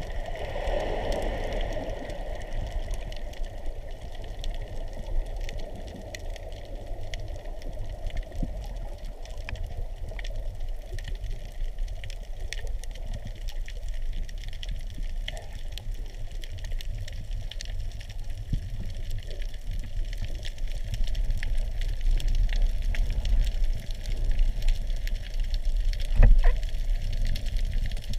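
Underwater ambience heard through a handheld camera's waterproof housing: a steady, muffled low rumble of moving water with scattered sharp clicks and crackles, and one louder knock near the end.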